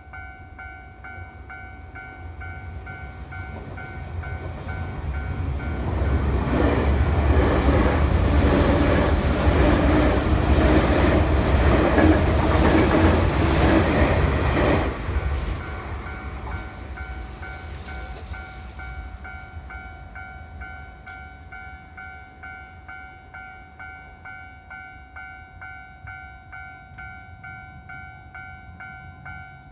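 Japanese level-crossing warning bell ringing in a steady repeating two-tone pattern while a Keio Line train rumbles through the crossing, building from about four seconds in, loudest for about nine seconds and dying away soon after. The bell keeps ringing after the train has gone.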